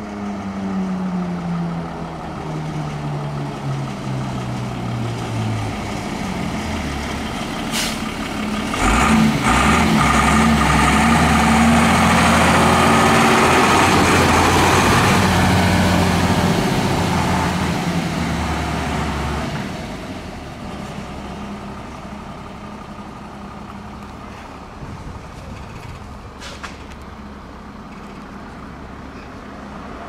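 Fire engine's diesel engine. It slows as the truck approaches, its pitch falling, then grows loud with a rushing noise as the truck drives close past, from about 9 to 19 seconds in, and fades away after that.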